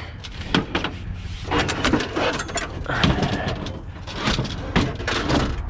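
A run of knocks and clanks from scrap metal being handled and loaded onto a truck, with a steady low rumble underneath.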